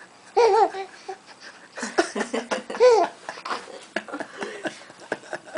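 A baby laughing in a string of short, pitched bursts, cracking up at a fake hiccup.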